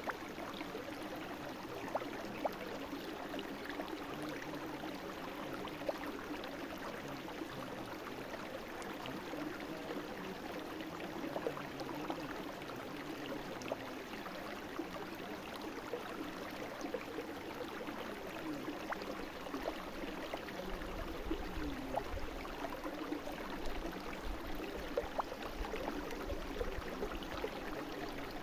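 Brook water flowing and babbling steadily, with many small splashes and drips. A low rumble joins in for several seconds in the second half.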